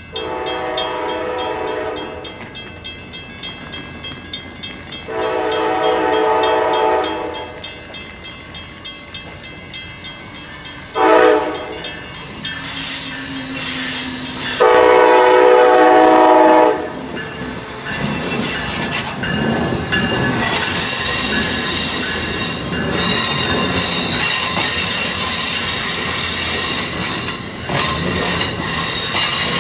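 Amtrak ACS-64 electric locomotive's horn sounding long, long, short, long, the grade-crossing signal, as the train approaches. Then the passenger train runs close past with a loud rolling rumble and high, steady wheel squeal.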